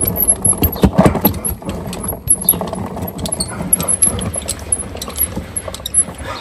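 Hand-cranked boilie crusher being turned on a bait bucket, crunching and rattling as it breaks hard carp-bait boilies into fine crumbs.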